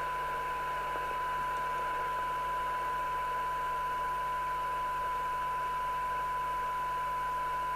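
Rotel RVC240 FM CB receiver's audio output playing a steady 1 kHz test tone over constant hiss. It is receiving a very weak signal-generator signal of about 0.44 microvolts, set for 10 dB SINAD in a sensitivity test, which is why the noise sits close under the tone.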